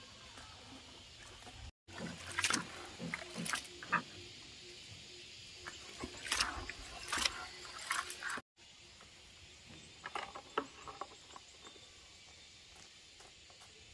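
Animals, with a run of sharp clicks and knocks and a few short calls. The sound cuts out abruptly twice.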